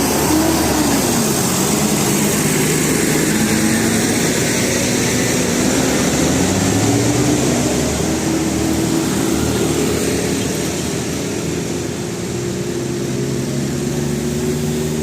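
Bus engines running with heavy road noise as buses go by, the engine tones gliding and mostly rising slowly as they pull away.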